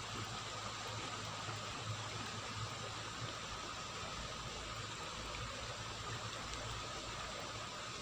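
Steady, even rush of running water with rain falling on the surface of a small flooded canal.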